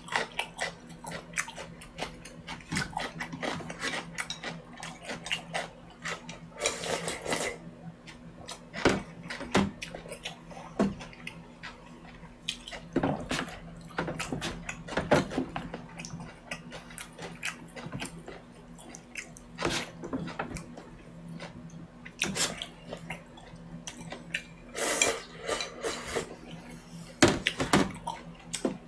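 Eating sounds: wooden chopsticks clicking against a plastic takeout container and bowl, and slurping and chewing of noodles and broth, with two longer slurps about seven seconds in and near the end. A steady low hum runs underneath.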